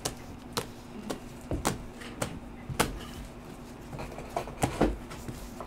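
Scattered light clicks and taps, about ten spread irregularly, as trading cards and their plastic holders are handled and set down on a tabletop, over a faint steady hum.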